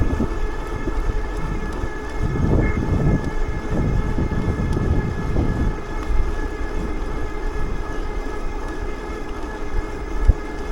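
Wind buffeting the microphone on a bike moving at speed, in uneven low gusts, over a steady high whine that holds one pitch.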